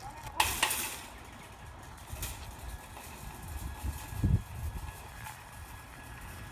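Metal shopping cart rolling down an asphalt street: a low rumble from its wheels, with a couple of sharp clatters about half a second in and a stronger low rumble about four seconds in.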